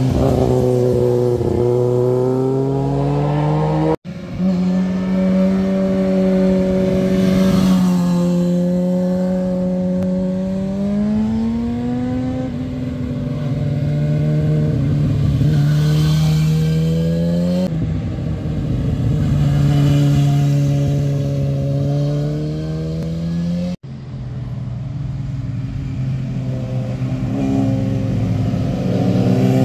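Sport motorcycle engines revving through a hairpin bend, their pitch dipping and climbing as each bike slows into the curve and accelerates out. Several separate passes are joined by sudden cuts, about four seconds in and again about six seconds before the end.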